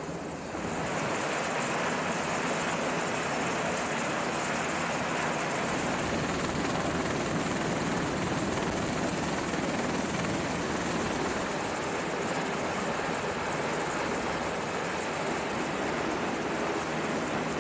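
MV-22 Osprey tiltrotors running on deck with rotors turning: a steady rush of engine and rotor noise that swells about half a second in and then holds level.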